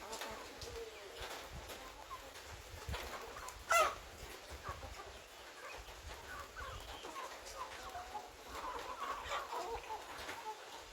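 Chickens clucking here and there, with one louder call about four seconds in and a busier stretch of clucking near the end.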